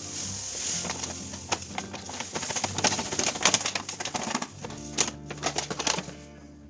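Dry pantry goods poured into a storage canister, a dense run of rattling clicks that is busiest in the middle and thins out near the end, with soft background music underneath.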